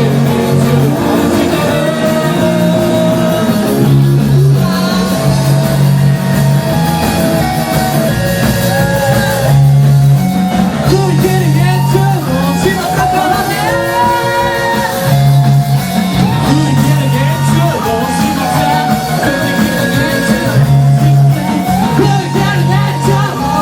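Rock band playing live with a singer. The music is loud and continuous, with sustained low notes under a wavering vocal line.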